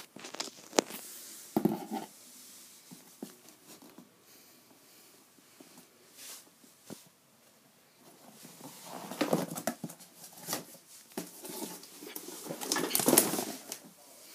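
Hands handling coffee packaging: irregular rustling with scattered clicks and taps, growing louder in clusters about nine seconds in and again near the end.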